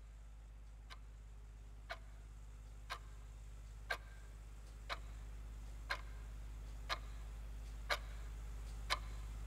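Clock ticking once a second, each tick a little louder than the last, over a low steady hum.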